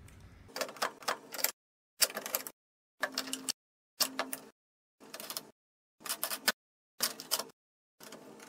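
Clicks and metallic rattles as an aluminium screen frame is fitted into screen-printing press clamps and their wing knobs are turned tight, coming in short bursts about once a second with silence between.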